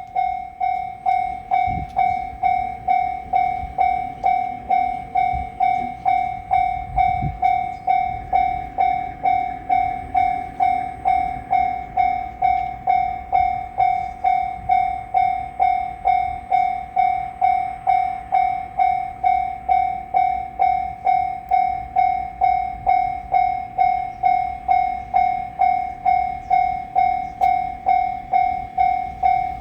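Japanese railway level-crossing warning bell ringing its steady "kan-kan", about two strikes a second, each one fading before the next: the crossing is closed for an approaching train.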